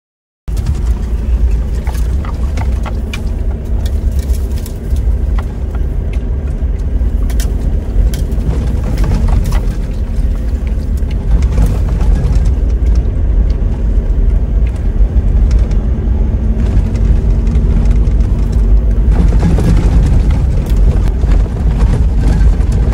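Toyota Hilux driving along a rough dirt track, heard from inside the cab: a steady low engine and tyre rumble with frequent knocks and rattles from the bumps. It cuts in abruptly just after the start.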